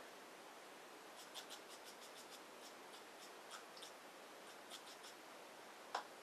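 Faint, quick scratchy strokes of a paintbrush on watercolour paper, a dozen or so short scrapes, then a single sharper knock near the end.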